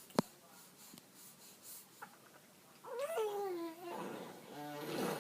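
A baby vocalizing: a sharp click just after the start, then about three seconds in a drawn-out squeal that rises and falls in pitch, followed by a rougher, creaky, straining sound.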